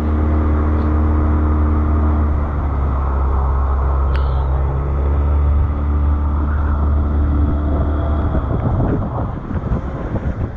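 Dinghy outboard motor running steadily, a loud low hum. After about eight and a half seconds the steady engine note fades into rough, choppy wind and water noise.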